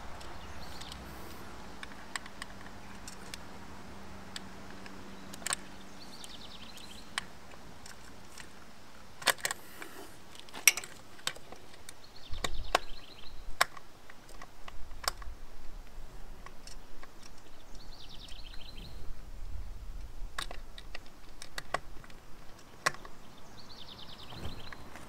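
Scattered sharp clicks and taps of a screwdriver and small metal parts being handled at a motorcycle carburettor, with a cluster of them about ten seconds in. Short bird chirps come now and then in the background.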